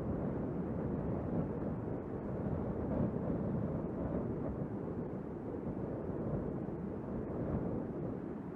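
Wind buffeting the microphone of a camera carried by a skydiver gliding under an open parachute canopy: a steady, low, unpitched rumble with small uneven swells.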